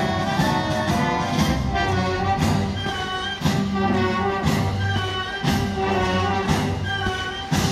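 Live symphony orchestra playing a brass-heavy piece, with a sharp crash about once a second.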